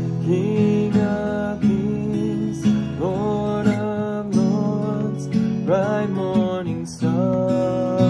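Acoustic guitar strummed in a slow, even rhythm, with a melody line above the chords that slides up into its notes.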